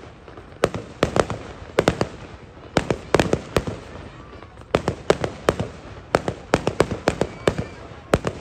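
Aerial fireworks going off: sharp bangs in quick clusters of two to four, a new volley every second or so, with a crowd murmur between them.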